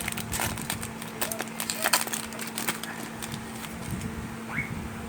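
Foil wrapper of a Pokémon trading-card booster pack crinkling and tearing as it is opened, with the cards being handled: a run of irregular crackles and clicks over a steady low hum.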